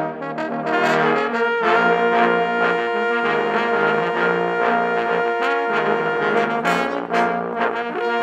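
Ensemble of eight tenor and bass trombones playing a jazzy arrangement in close harmony, one part played with a plunger mute. Long held chords through the middle, with shorter accented notes near the start and end.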